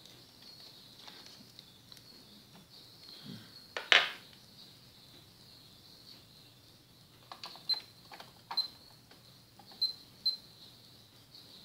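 Hard plastic clicks and knocks from handling a pocket multimeter in its clear plastic case and its test probes: one sharp knock about four seconds in, then a run of lighter clicks later as the probes are worked into a power-strip socket to measure mains voltage.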